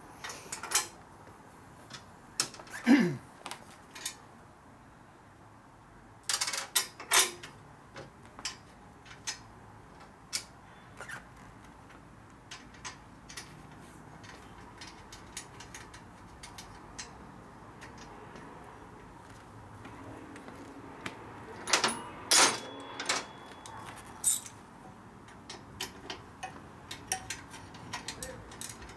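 Scattered metallic clicks, clinks and knocks of hand tools on a motorcycle's rear axle hardware, in irregular clusters, with a short squeak falling in pitch about three seconds in.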